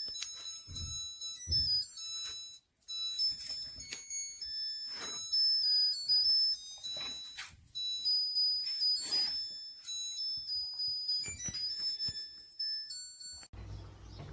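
Electronic music with a high, beeping melody and drum hits, which cuts off abruptly near the end.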